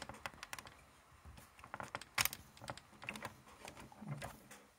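Handling noise: a run of irregular small clicks and knocks as the camera and hardware are moved about, the sharpest about two seconds in and a duller knock near the end.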